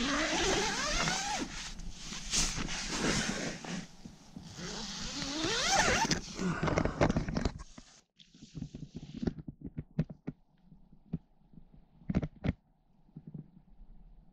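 Tent door zip being pulled open in two long strokes, each rising in pitch, followed by a scatter of small clicks and rustles of the tent fabric being handled.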